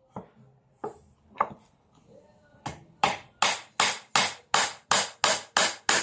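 Hammer driving a nail into a palochina (pine) board: a few light setting taps, then from about midway a steady run of about ten strikes, nearly three a second.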